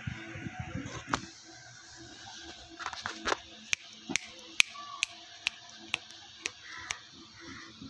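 A goat chewing dry fodder close to the microphone: a regular run of sharp crunching clicks, about two a second, through the second half.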